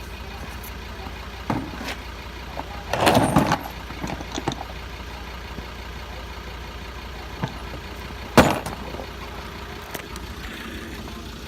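Vehicle engine idling steadily, with several short knocks and clunks over it, the loudest about eight seconds in.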